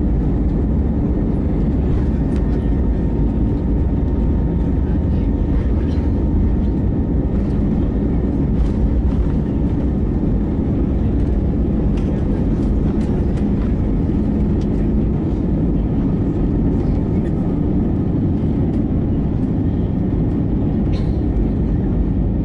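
Steady, loud cabin rumble inside an Airbus A320neo: its CFM LEAP-1A jet engines and the airframe running, with light scattered rattles from the cabin.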